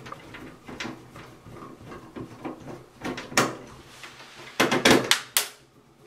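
Quarter-inch nut driver backing out the sheet-metal screws of a furnace high-limit switch: scattered small metallic clicks and scrapes, a louder knock about three seconds in and a quick run of knocks near five seconds.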